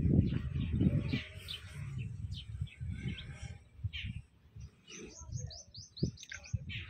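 Small birds chirping, with a quick run of short high chirps about five seconds in. Under them are irregular low thuds and rumbles, loudest in the first second.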